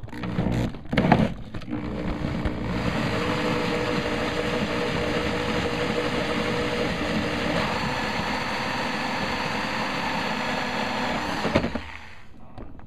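Power drill turning a 1 1/8 inch hole saw as it cuts a round hole through a thin boat console panel. A few short blips of the trigger come first, then a steady run of about ten seconds with a constant motor whine, ending abruptly shortly before the end.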